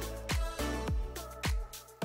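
Background music with a steady beat, low drum hits about twice a second under sustained pitched notes, briefly thinning out near the end.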